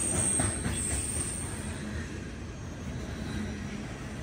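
Norfolk Southern coal train's freight cars rolling past, steady wheel-on-rail noise that eases off slightly over the first two seconds.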